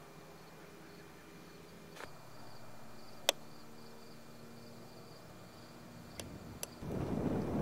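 Faint open-air ambience with insects chirping in short, repeated high pulses, broken by a few sharp clicks. Near the end, loud wind noise on the microphone cuts in suddenly.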